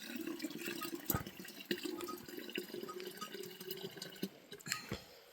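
Water dripping and trickling, with many small drops landing at an irregular pace.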